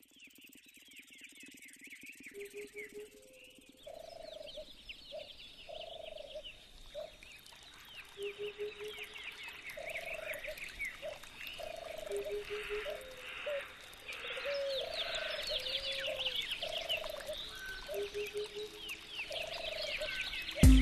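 Frog chorus: repeated short, low croaks over dense, fast, high-pitched chirping, building up in loudness. A sudden loud hit near the end as music starts.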